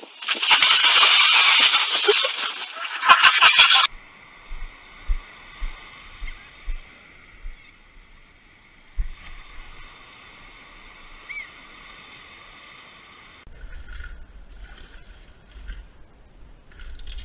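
A person plunging into the sea off rocks: a loud splash and rush of water lasting about two seconds, then scattered splashing. After that it is much quieter, with a few faint low thumps.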